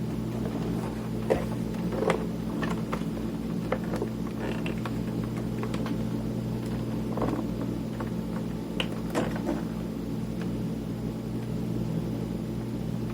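Scattered small clicks and scrapes of a screwdriver and parts being handled while a cassette multitrack recorder is taken apart, over a steady low electrical hum.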